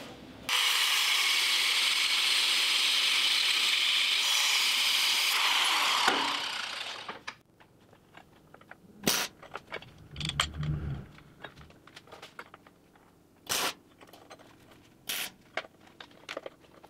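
MIG welding arc crackling steadily for about six seconds as a bead is run, then dying away, followed by a few short bursts of arc from quick tack welds and some light knocks of metal parts on the steel table.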